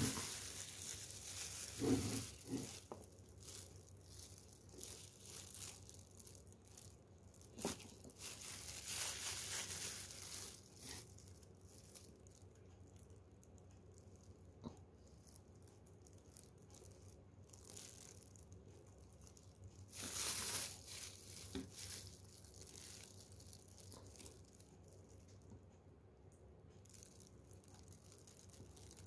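Loose disposable plastic gloves crinkling and rustling while hands handle a plastic toner cartridge and a bottle of toner powder during refilling. The sound comes in a few short crackly bursts, with the odd small click of plastic on plastic in between, and is otherwise faint.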